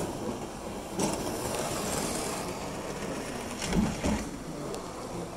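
Model Flying Scotsman locomotive running on the layout's track, a steady mechanical rolling of motor and wheels on rail, with a couple of louder knocks about a second in and near four seconds.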